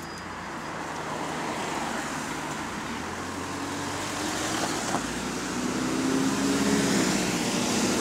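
Single-deck bus's diesel engine pulling away under load, growing louder and rising in pitch as it accelerates past; the uploader says this engine has rod knock.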